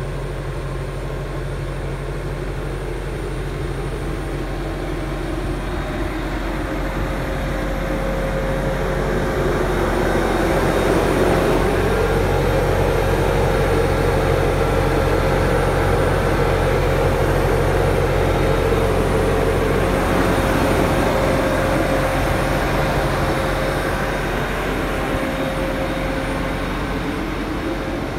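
Diesel engine of a JCB 722 articulated dump truck idling steadily: a low, even hum with a steady whine above it. It grows louder for a while in the middle, then eases again.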